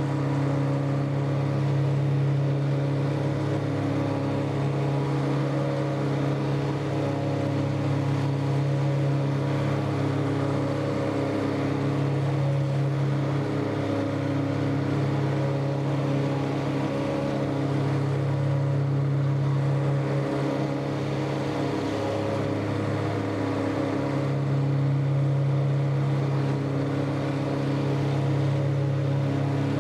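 Tractor engine running steadily under load while pulling and driving a 12-foot Woods Turf Batwing rotary mower through grass. The engine note holds an even pitch throughout.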